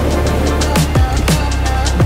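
Background electronic music with a steady beat: deep kick drums that drop in pitch and sharp hi-hat ticks over a sustained bass.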